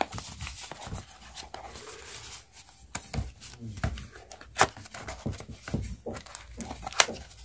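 Cardboard packaging handled by hand: scattered taps, scrapes and rubbing of card as a small inner box's flap is pried open, with sharper clicks about four and a half and seven seconds in.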